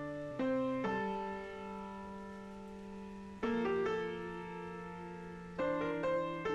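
Background piano music: slow, spaced chords that are struck and left to ring and fade before the next.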